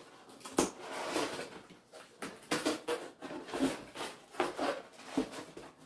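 Cardboard and paper packaging handled and rustled while a comic-book mailer is unpacked: a run of irregular rustles and scrapes, with one sharp knock about half a second in.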